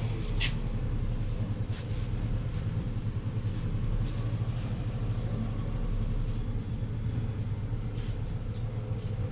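Car engine idling steadily with a low even rumble, with a few light clicks over it.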